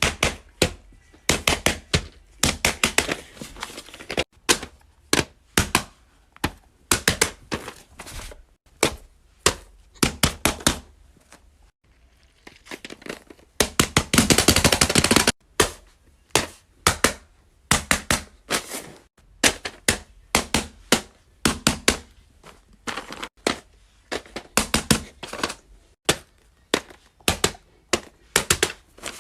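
Plastic fidget toys being pressed and popped: quick runs of sharp pops and clicks in clusters, with a dense rattle of clicking about thirteen to fifteen seconds in.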